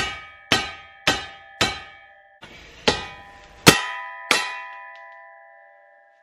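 A hammer striking a deep socket set on a U-joint bearing cap in a driveshaft slip yoke clamped in a bench vise: seven ringing metallic clangs, four in quick succession, a short pause, then three more, the last ringing on for about two seconds. The blows are driving the U-joint cap out through the yoke.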